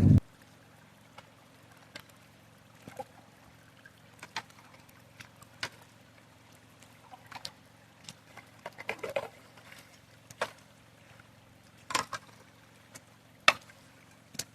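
Slow, irregular drips of water, single sharp drops landing about once a second with a few quick clusters, over a faint steady low hum.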